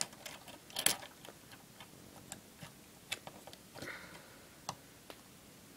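Small clicks and taps of plastic Lego pieces being handled: a louder cluster about a second in, then scattered single clicks.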